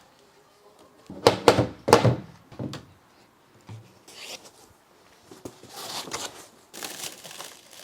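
Cardboard box being opened: a few sharp thuds and knocks in the first couple of seconds, then scraping and rustling of packaging.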